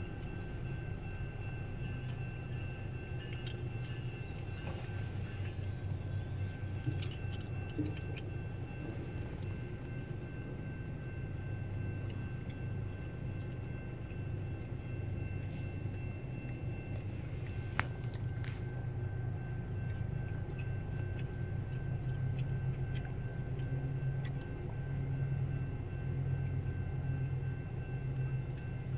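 Steady low rumble of a Bombardier ALP-45DP commuter locomotive's diesel engine running at the crossing, heard through the closed car. The hum grows a little louder in the second half, with faint steady high tones over it.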